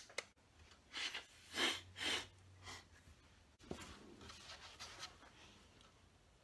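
Soft rustling of hands rubbing together and jacket fabric moving: four short brushes about half a second apart, then a longer stretch of quieter rustle as the arms fold.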